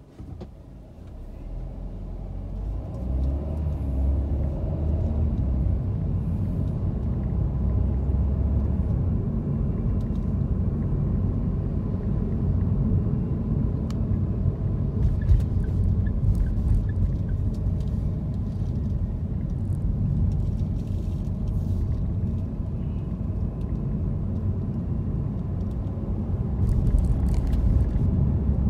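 Car's engine and tyre rumble heard from inside the cabin as it pulls away from a standstill. The sound builds over the first few seconds, then holds as a steady low rumble while driving.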